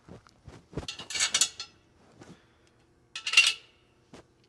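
Metal parts clinking and rattling as they are handled, in two short bursts: one about a second in and another about three seconds in, with a few soft knocks between.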